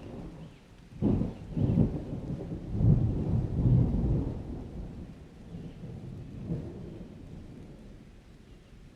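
Thunder from a dry summer storm: a sudden crack about a second in, then a rolling rumble that swells again around three to four seconds in and slowly dies away.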